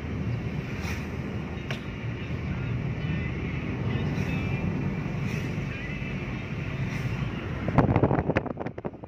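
Steady low road and engine rumble inside a moving car's cabin. Near the end it turns louder and choppy as wind buffets the microphone.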